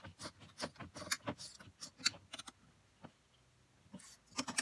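Irregular light metallic clicks and clinks of tree-stand parts and hardware being handled: a run of them over the first two and a half seconds, a short lull, then a quick cluster near the end.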